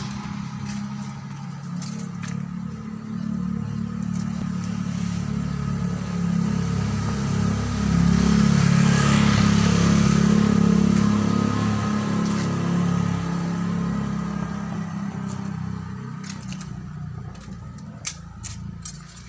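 A motor vehicle's engine running with a steady low hum, swelling louder toward the middle and fading again.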